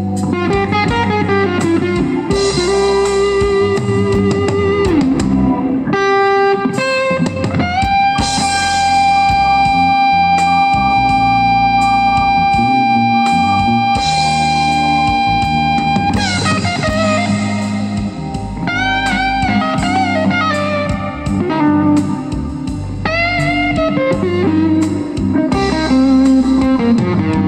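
Guitar-led music played through a car component speaker set (woofer and tweeter) as a listening test, with one long held note in the middle.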